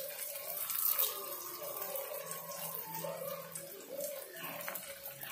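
Chopped shallots, garlic and curry leaves sizzling in hot oil in an earthen clay pot, a steady frying hiss.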